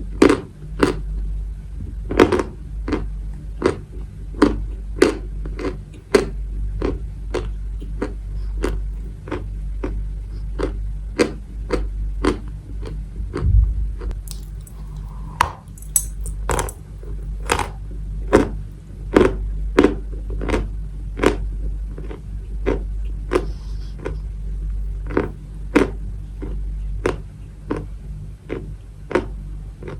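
Maria chalk being chewed close to the microphone: sharp crunches about two a second, over a steady low hum.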